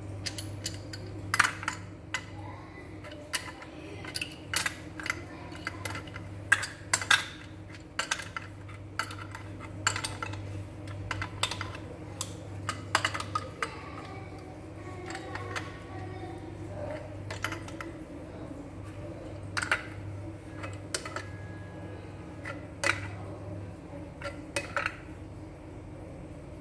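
Irregular sharp metallic clinks and clicks as a chrome wall-mounted mixer tap is handled and its wall connections are worked with an adjustable wrench. A steady low hum runs underneath.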